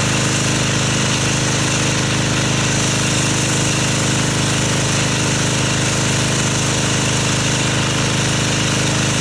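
Pressure washer running steadily, its pump and motor giving a constant drone under the hiss of the water jet as foam is rinsed off a car.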